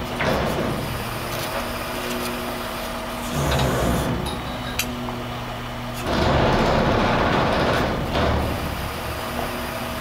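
Rear-loader garbage truck running with its Heil packer hydraulics being worked from the rear control lever. The steady engine hum loads up twice, about three and a half seconds in and again at six seconds, louder and noisier as the packer cycles, with a single sharp click in between.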